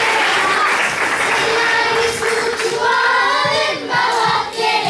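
Applause tailing off, then a group of children singing together, their voices coming in about two seconds in.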